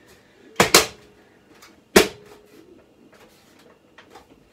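Plastic PC case front panel being pushed back on, its clips snapping into place: a quick double click just under a second in and a louder snap at about two seconds, followed by a few faint ticks.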